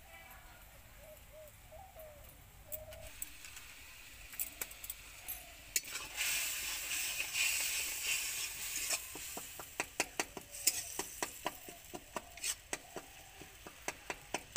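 Onions and masala frying in hot oil in a steel kadai: the sizzling jumps up loudly about six seconds in as the spices go in, then a metal spatula scrapes and clacks against the pan in quick stirring strokes, about three or four a second.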